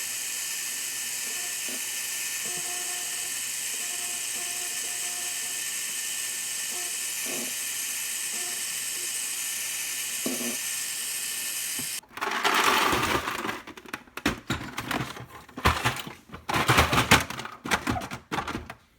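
A small electric motor whirs steadily with a high whine. About two thirds of the way through it cuts off suddenly, followed by loud, irregular knocking and rustling handling noises.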